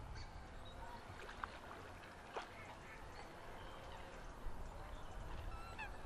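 Faint scattered calls of waterfowl across a lake over a low steady rumble, with two short sharp clicks about a second apart in the first half.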